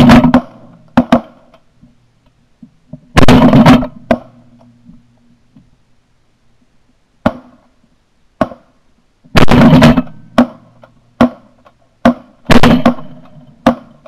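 A rapid string of shotgun shots, about a dozen in all. Four are heavy overlapping volleys, and fainter single reports fall between them.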